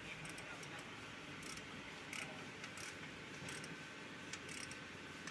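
Ratchet wrench clicking in short, irregular runs as it loosens the engine oil drain plug on the oil pan, faint over a steady workshop hum.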